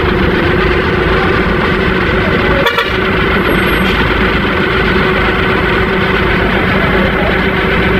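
Water tanker truck's diesel engine running loudly under load as the truck pulls forward, with a steady hum held throughout; the sound breaks off for a split second a little under three seconds in.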